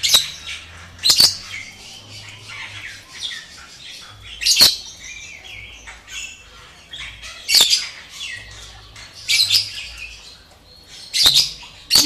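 Cockatoo giving about six short, harsh, high squawks, spaced a second to three seconds apart, with softer chattering calls in between.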